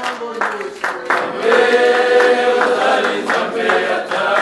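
A group of voices singing a hymn together, holding one long chord through the middle, with a few hand claps near the start.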